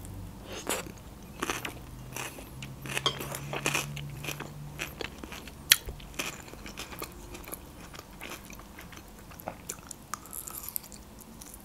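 Close-miked chewing of a forkful of Greek salad: crunchy bites and many small mouth clicks, with another bite near the end.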